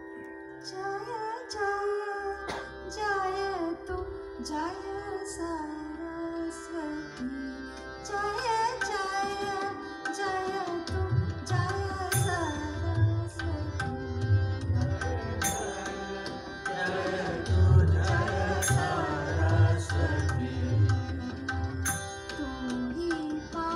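Live bhajan: a solo voice sings a devotional melody over a steady sustained drone, and hand-drum strokes join in about eleven seconds in.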